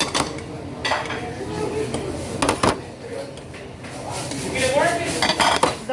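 Cutlery and plates clinking in a few sharp knocks, with voices talking.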